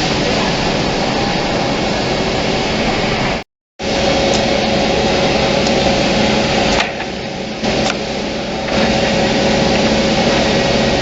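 Automatic double-end wood cutting and drilling machine running: steady, loud motor and cutting noise with a humming tone. It drops out for a moment about a third of the way in and eases off for a couple of seconds past the middle.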